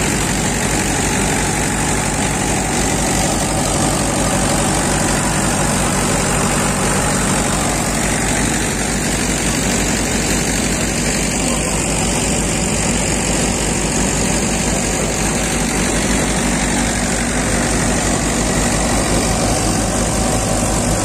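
Mahindra 585 DI tractor's four-cylinder diesel engine running steadily at about 1400–1500 rpm under load, driving a groundnut (peanut) thresher through its PTO, with the thresher's own steady running noise mixed in.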